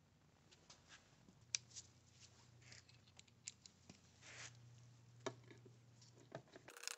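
Faint clicks and scrapes of a hand screwdriver driving screws through an HID ballast into a plastic headlight housing, under a faint low hum. The noise grows louder and busier near the end.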